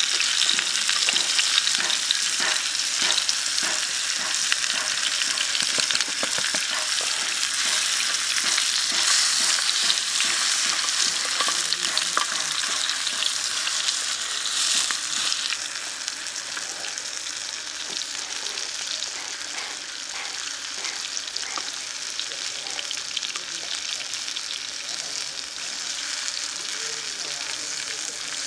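Pork rib pieces sizzling in hot oil in a small black rectangular pan, with light clicks of chopsticks turning the pieces. The sizzle eases somewhat about halfway through.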